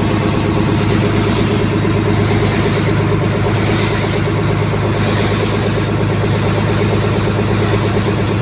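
A boat's engine running steadily at a constant speed, a loud, even low hum with a fast pulsing beat.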